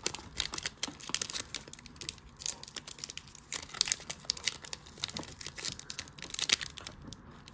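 Foil wrapper of a Donruss football card pack crinkling and tearing as it is peeled open by hand, a run of irregular crackles.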